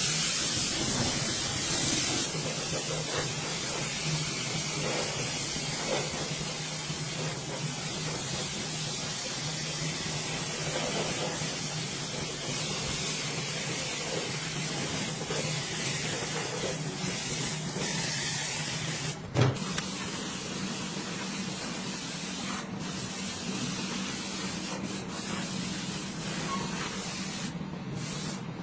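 Pressure washer spraying water in a steady hiss over a low motor hum, with a few brief breaks in the spray in the second half.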